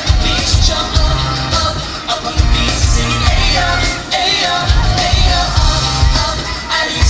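Live pop boy-band performance: male voices singing over a loud backing track with a pulsing bass beat.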